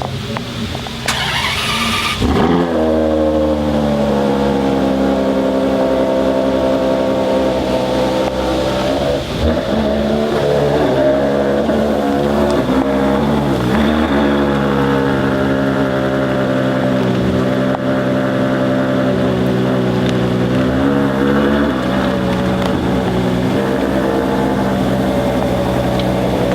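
A car engine starting: a brief noisy crank, a flare of revs that quickly falls, then a steady idle.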